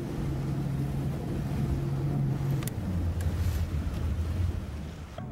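Bass boat's outboard motor running under way, with a steady hum over the rush of wind and water; about three seconds in its pitch drops to a lower hum.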